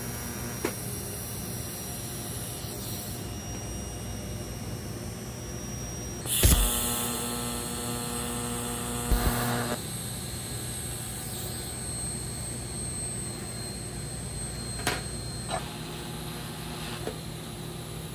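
TIG welding arc on 14-gauge copper at about 160 amps, with a steady hiss and hum as the foot pedal is pulsed on and off. A sharp, loud burst comes about six seconds in and a smaller one about nine seconds in.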